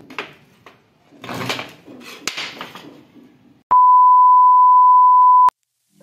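Rustling and handling noise, then a loud, steady 1 kHz test-tone beep that lasts about two seconds and cuts off abruptly. The beep is an edited-in TV 'no signal' effect over a colour-bar glitch.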